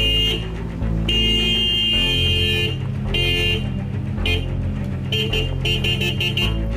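Car horn of a Hyundai SUV honking at a rope stretched across the road: a short blast, a long blast of about a second and a half, another short one, then a quick run of short toots, over background music.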